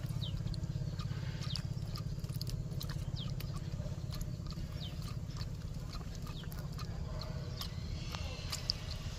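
Baby monkey sucking milk from a baby bottle, with faint wet sucking clicks, over a steady low hum. Short high falling chirps come about once or twice a second.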